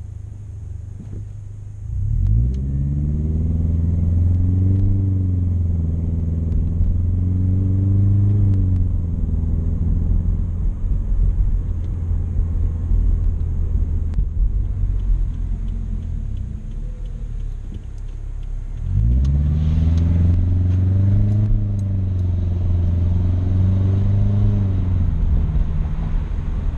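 Subaru Crosstrek's flat-four boxer engine, heard through a Nameless Performance 5-inch aftermarket muffler from inside the cabin while driving. The exhaust note rises as the car accelerates about two seconds in, then settles into a steady drone. It rises again in a second acceleration about two-thirds of the way through.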